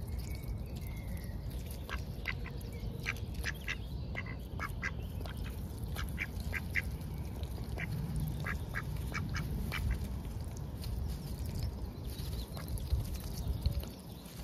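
Mallard ducks feeding at close range: a scattered run of short, sharp clicking sounds from about two to ten seconds in, over a steady low rumble.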